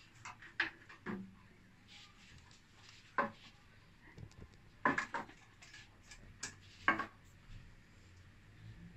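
Light clicks and knocks from fittings being handled on the rim of a glass aquarium: about eight short, sharp contacts at uneven intervals, the loudest about halfway through and again later on.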